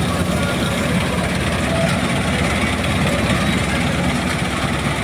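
Combine harvester running steadily while harvesting wheat: a continuous low machine drone with no change in pace.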